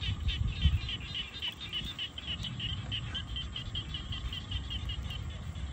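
An animal calling in a rapid, even series of short high chirps, about five a second, that stops near the end, over a low rumble.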